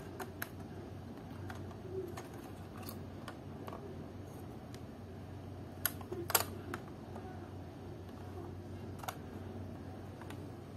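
Scattered small clicks and taps as fingers handle the plastic and metal parts of an opened Samsung NP300E4X laptop, the loudest cluster about halfway through, over a steady low hum.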